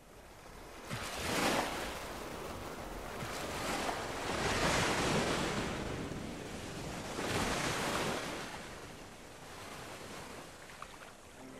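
Surf: waves washing in and drawing back, rising and falling in slow swells about three seconds apart.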